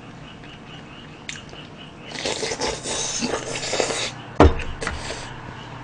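Eating sounds close to the microphone: about two seconds of slurping and chewing from a bowl of pork-and-rice soup, then a single sharp knock and a little more slurping.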